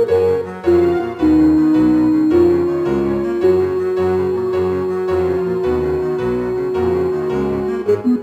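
Background music played on keyboard: a melody over a moving bass line, with one note held for several seconds midway and a quicker repeating figure starting near the end.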